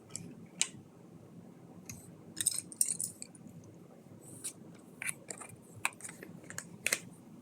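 Small plastic Lego pieces clicking and rattling as they are handled and sorted, in scattered short ticks with a brief flurry about two and a half seconds in.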